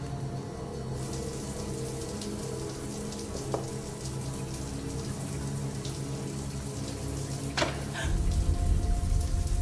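Shower spray running, a steady hiss that starts about a second in, under a sustained low music score. A couple of sharp clicks, and a deep rumble swells up near the end.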